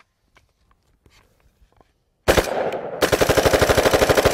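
AR-15 rifle bump-fired through a Slide Fire stock, which uses recoil plus forward pressure from the shooter's hand to work the trigger. It is quiet for about two seconds, then one shot, then from about three seconds in a fast, even string of shots like full-auto fire.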